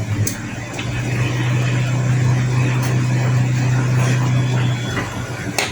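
A steady low machine hum in a kitchen, with a sharp click just after the start and another near the end.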